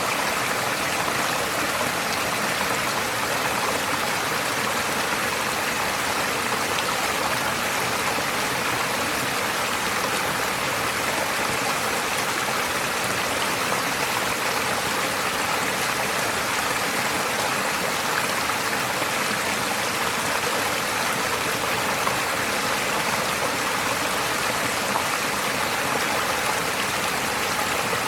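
A forest stream flowing, a steady, unbroken rush of water.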